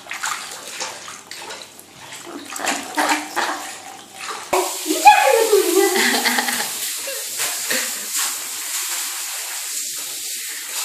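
Hands scrubbing a Persian cat's soaked fur in a bathtub, with small splashes, then about four and a half seconds in a handheld shower head comes on and sprays a steady hiss of water onto the cat and the tub.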